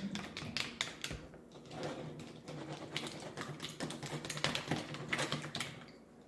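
Jelly slime being mixed by hand, a run of quick, irregular wet clicks and pops that stop shortly before the end.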